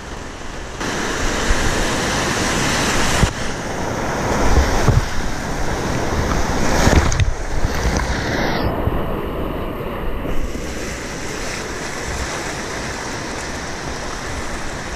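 Whitewater rapid rushing and splashing around a kayak, with waves breaking over the boat. A little past the middle the sound goes muffled for about a second and a half as water washes over the microphone.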